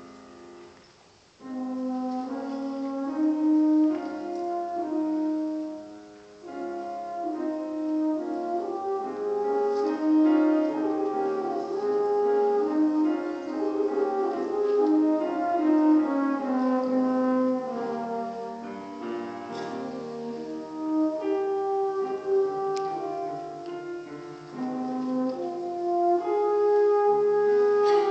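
French horn playing a melodic solo with piano accompaniment. After a brief pause about a second in, the horn and piano resume together.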